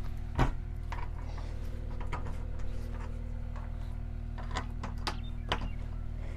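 Bolts and hardware clicking against the seam of a corrugated galvanized steel tank wall as they are fitted through the bolt holes: a handful of sharp metallic clicks, the loudest about half a second in. A steady low hum runs underneath.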